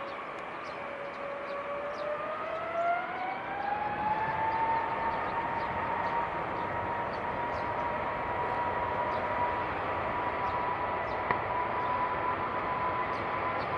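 Jet airliner engines spooling up: a whine that rises in pitch over a few seconds, then holds steady over a growing roar, typical of the engines going to takeoff thrust.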